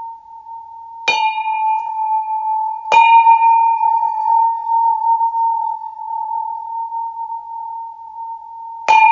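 A sculptural bell in the form of a man's head is struck three times: about a second in, near three seconds and near the end. Each strike gives a bright clang of higher overtones that fades over a few seconds, above the bell's steady ringing hum, which carries on throughout.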